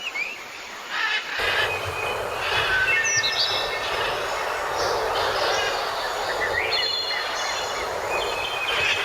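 Several small songbirds singing and chirping over a steady rushing background noise with a low rumble, which sets in abruptly about a second and a half in.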